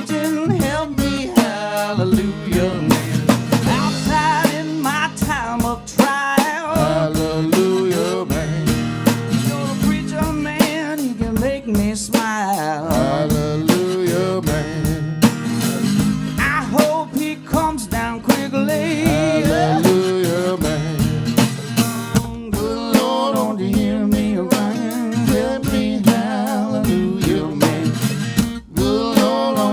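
Band playing a blues song, guitar lines bending over a steady rhythm, with no singing.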